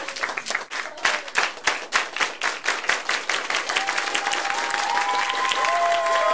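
A crowd applauding with dense clapping, joined about four seconds in by several long, held high tones over the applause.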